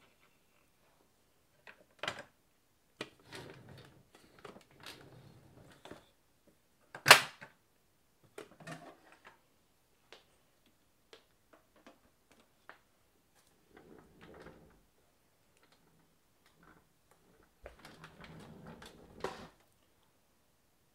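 Plastic clicks, knocks and rattles from the parts and attachments of a VAX 121 vacuum cleaner being handled, with the motor off. One loud sharp knock comes about seven seconds in.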